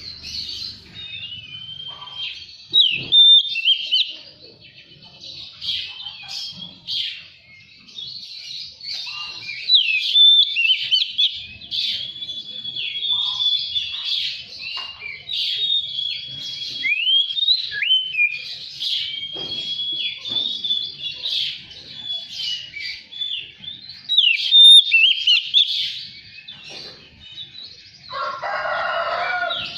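Oriental magpie-robin singing a long, varied song of quick whistled notes, rising and falling glides and chattering phrases with hardly a break. Near the end a lower, harsher call lasting about a second and a half comes in.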